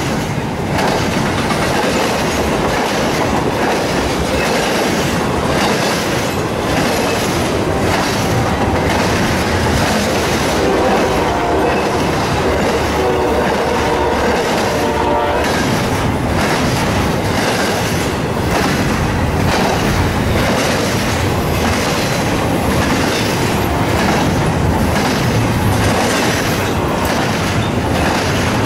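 Double-stack intermodal freight cars rolling past at speed, a loud steady rumble with the wheels clacking over the rail in an even rhythm. For about five seconds in the middle a held tone with several pitches sounds over it, then cuts off suddenly.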